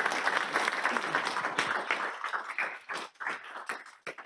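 Audience applauding, dense at first, then thinning to a few scattered claps that die away near the end.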